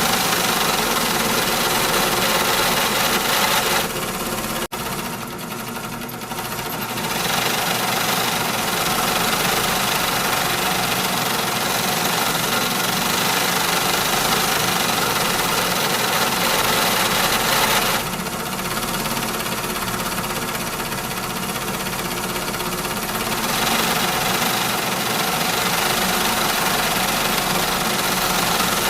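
Loud factory machinery running steadily, a dense mechanical din with several steady hums in it. It dips briefly with an abrupt break about five seconds in, and is a little quieter for a few seconds about two-thirds of the way through.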